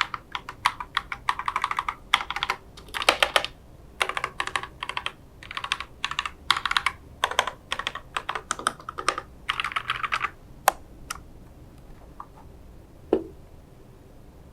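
Mechanical keyboard with KTT Mint linear switches and PBT keycaps being typed on in quick runs of keystrokes. The typing stops about ten seconds in, followed by a few single key presses.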